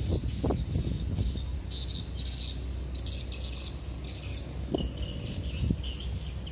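Insects chirping in repeated short pulses over a steady low rumble, with a few soft knocks.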